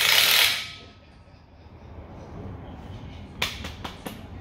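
A loud, steady whirring hiss from a tool being used on an engine hoist's hydraulic cylinder mount cuts off under a second in. After a quiet spell, a run of sharp metallic clicks follows, several a second, about three seconds in.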